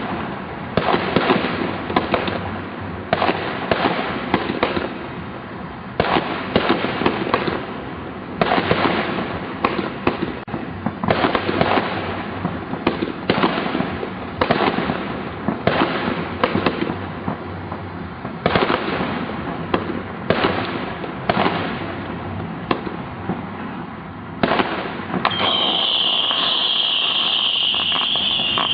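Fireworks going off in rapid succession: repeated sharp bangs with crackling between them. About 25 seconds in, a steady high-pitched whistle starts and holds to the end.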